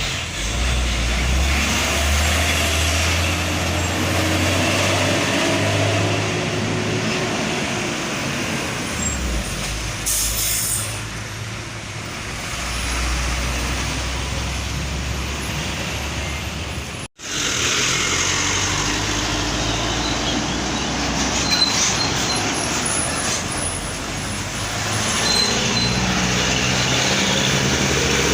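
Heavy trucks running on a road: a deep, steady diesel engine drone with passing traffic noise. A short air-brake hiss comes about ten seconds in. The sound cuts out for an instant at about seventeen seconds, then the engine and traffic sound carry on.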